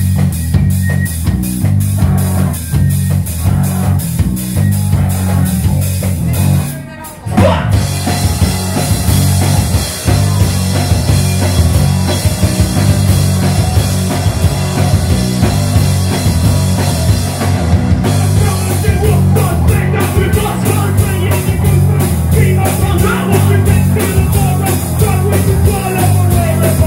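Live rock band playing loud: distorted electric guitars, bass guitar and drum kit. About seven seconds in the music drops out briefly, then the full band crashes back in. A shouted vocal comes in over the later part.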